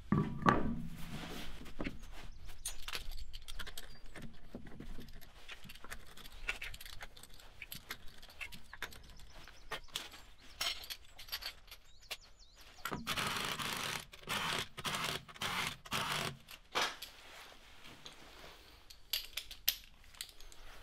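Wheel bolts being threaded in and run down with a 17 mm socket wrench: a string of metallic clicks and scrapes, with several short louder bursts of rattling a little past the middle.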